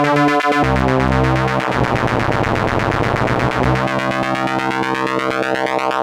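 Stylophone S2 analog synthesizer playing a thick, buzzy sustained tone, with the pitch and timbre shifting every second or so; in the second half the sound sweeps, as the filter and modulation are tweaked.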